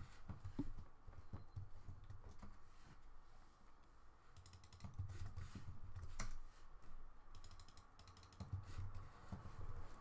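Typing on a computer keyboard: short bursts of keystrokes with pauses between them, about three bursts in all.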